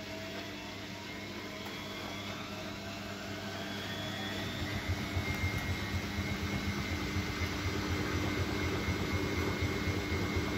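Siemens Siwamat Perfecta SL washing machine speeding up into a spin: the motor's whine rises in pitch and the sound grows louder, with a fast pulsing rumble setting in about halfway through.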